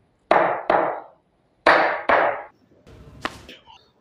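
Two pairs of sharp hits, each ringing off over about half a second, the second pair about a second and a half after the first; faint small knocks follow near the end.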